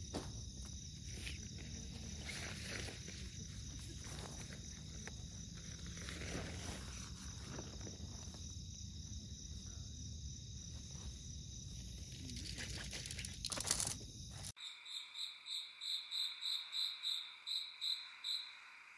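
Night chorus of crickets and other insects, a steady high trill, over faint rustling as tent fabric is unpacked and spread on grass. About fourteen seconds in, the background drops away and a loud chirping call takes over, repeating about four times a second before stopping near the end.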